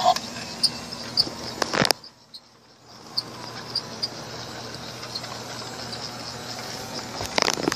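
Mr. Christmas toy train locomotive running along its track: a small motor whirring, with light regular clicking a few times a second. Two sharp knocks come, one about two seconds in and one near the end.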